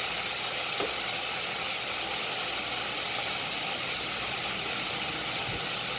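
Breaded chicken wings pan-frying in oil in a cast-iron skillet: a steady sizzle.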